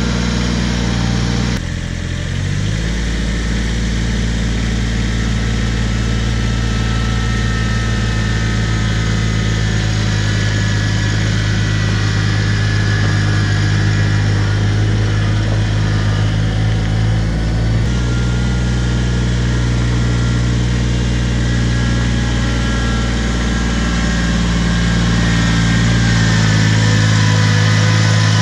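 Kubota BX compact tractor's diesel engine running steadily under heavy load while towing a larger tractor up a loose gravel slope. With suitcase weights on the front, the front end stays down and the tires pull without spinning.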